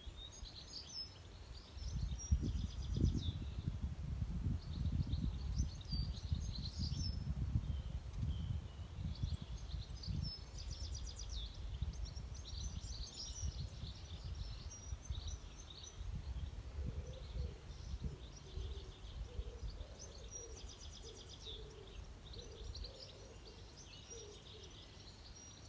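Garden songbirds singing and chirping in short, busy phrases throughout, with a low gusty rumble under them for the first half or so and some lower, repeated calls later on.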